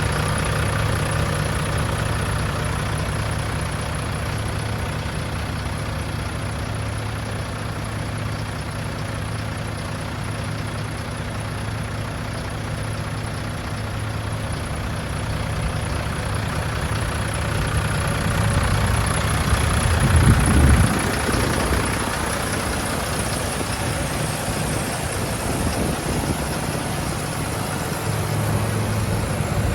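The MAN L2000 15.280 truck's diesel engine idling steadily. About 18 seconds in, the sound gets louder and rougher, peaks around 20 seconds, then settles back to a steady idle near the end.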